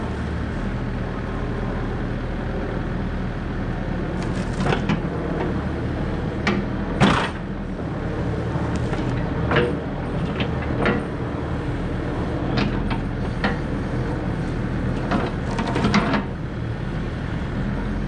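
Excavator engine running steadily while its toothed bucket moves oak logs, with scattered knocks and clunks of the bucket and shifting logs, the loudest about seven seconds in.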